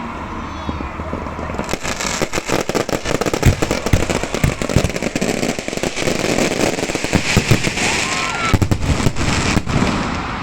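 Fireworks going off: a rapid run of crackles and bangs that starts about two seconds in and continues until near the end.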